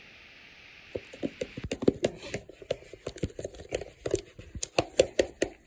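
Freshly mixed fluffy slime being worked and lifted, giving a quick irregular run of small sticky clicks and pops that starts about a second in.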